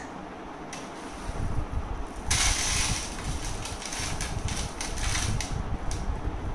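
Dry flattened rice (poha) flakes rustling as a toddler's hands scoop and tip them between a plastic bin and a plastic bowl, with a louder rush of flakes pouring about two and a half seconds in. Soft low thuds of handling run underneath.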